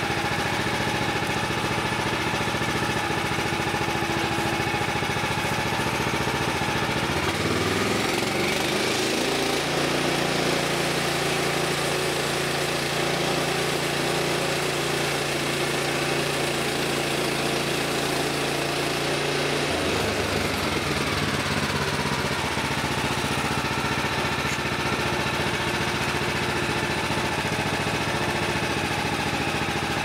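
Woodland Mills HM130 Max portable band sawmill's gasoline engine running steadily. About eight seconds in, its pitch drops and holds lower for about twelve seconds, then rises back.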